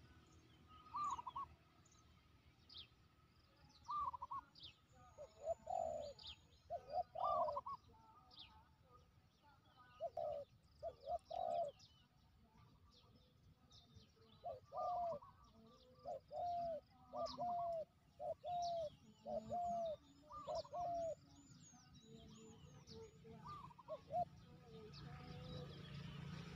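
A dove cooing in repeated bouts of short, curved coos. Thin, high chirps of small birds come in between.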